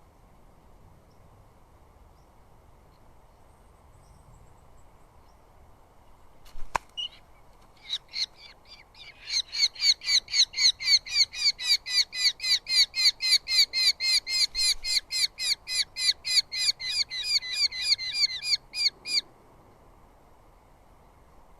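Eurasian hobby calling: a fast, even run of repeated notes, about four a second for some ten seconds, after a click and a few scattered notes.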